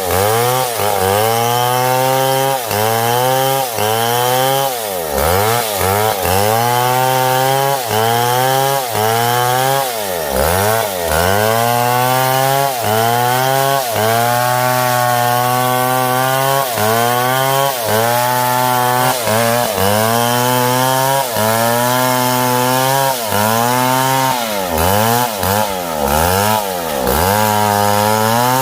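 STIHL MS661 two-stroke chainsaw cutting wood. The engine's pitch sags under load and recovers about once a second, and three times it drops off and climbs back up as the throttle is released and opened again.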